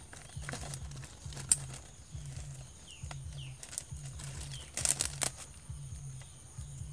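Plastic bag rustling and crinkling as a hand reaches into it, in scattered crackles with the loudest cluster about five seconds in. A few short high chirps come through around the middle.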